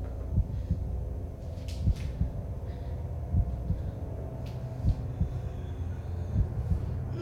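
Dark ambient horror score: a low steady drone with a deep pulse about every second and a half, and faint held tones above it.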